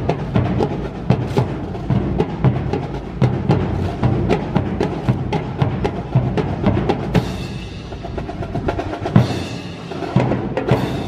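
Percussion-heavy music with a steady drum beat and deep timpani-like hits, accompanying a rifle drill performance, with many sharp clicks and strikes through it.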